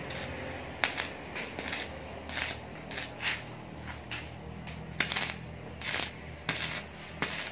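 Stick arc welding: the electrode strikes and crackles in a dozen or so short bursts, each starting sharply and cutting off suddenly, as tack welds are laid on the steel rack.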